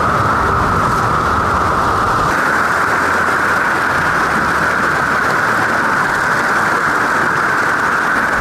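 Creek rapids: whitewater rushing and splashing between boulders in a loud, steady rush.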